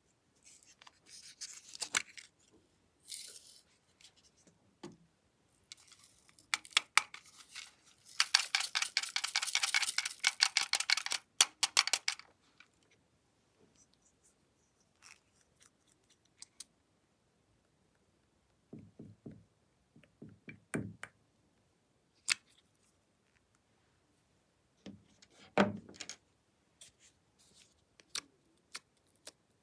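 Small plastic cosmetic bottles and slime containers being handled close to the microphone: scattered clicks and taps, a rapid rattle lasting about four seconds in the middle, and a louder thump near the end.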